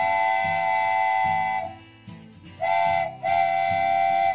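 A train horn sounding three times, long, short and long, each blast a steady chord that rises slightly into pitch at its start. Strummed guitar music runs underneath.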